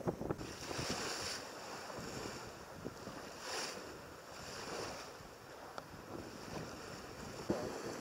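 Water rushing along a J/33 sailboat's hull under sail in gusty wind, with wind buffeting the microphone. The rush swells twice, about a second in and again about three and a half seconds in.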